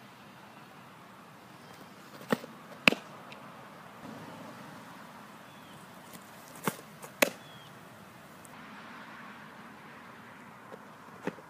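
Windmill softball pitches, twice: each a sharp snap as the pitch is let go, then about half a second later a louder pop of the ball into the catcher's mitt. Another snap comes near the end.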